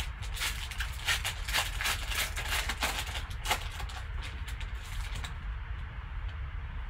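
Foil trading-card pack wrapper crinkling and tearing as it is ripped open and the cards pulled out, a dense run of crackles that stops about five seconds in. A low steady hum runs underneath.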